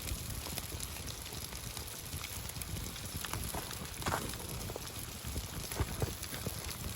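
Campfire crackling with scattered pops over a steady hiss, as fish bakes in foil on the coals, a few louder pops about four and six seconds in.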